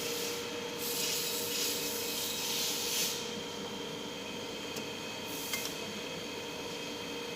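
Rubbing or scraping noise for about two seconds, then a steady low hum with a couple of light clicks.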